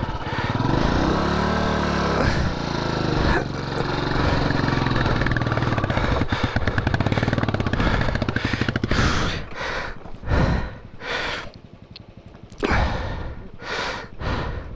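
Motorcycle engine revving up and down, then running with a fast, even beat. It breaks off into a few short bursts in the last few seconds.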